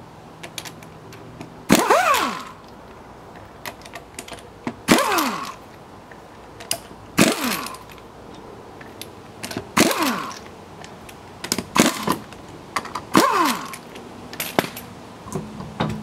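Pneumatic impact wrench spinning off wheel lug nuts in about six short bursts a couple of seconds apart, each winding down in pitch as it stops. Small clicks and taps come between the bursts.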